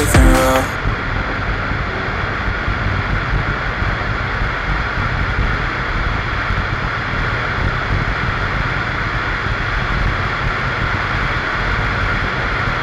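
Cessna 208B Grand Caravan's single PT6A turboprop engine and propeller running steadily in flight, heard from outside the airframe with a constant rush of airflow over the microphone.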